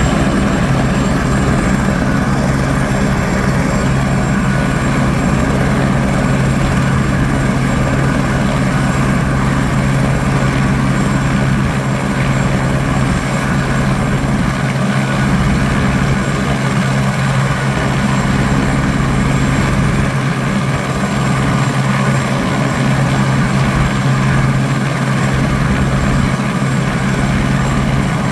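Airbus H125 (AS350 B3e) helicopter running steadily on the ground: its Arriel 2D turboshaft and three-blade main rotor make a loud, even hum with steady tones and no change in pitch.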